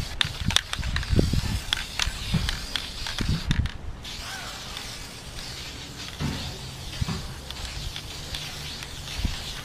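Aerosol spray can of self-etching primer hissing, with a short break a few seconds in, and wind rumbling on the microphone. A low steady hum comes in over the last few seconds.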